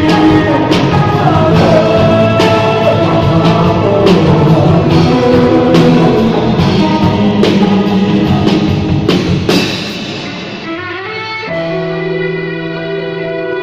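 Live rock band playing: electric guitar and drum kit, the drums hitting in a steady beat. About ten seconds in the drums stop and held notes ring on, a little quieter.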